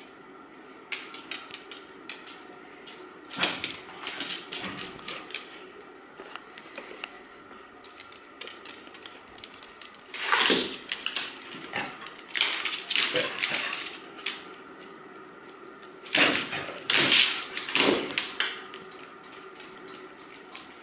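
A puppy and an older dog playing on a hardwood floor: claws clicking and scrabbling on the wood, with several louder bursts of scuffling and dog noises.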